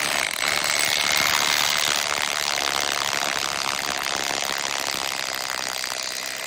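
SDS hammer drill boring through 20 mm porcelain tile, a steady high-pitched grinding rattle with a whine. It swells about half a second in and eases slightly toward the end. The glaze was first broken with a shallow diamond-bit cut so the tile does not crack.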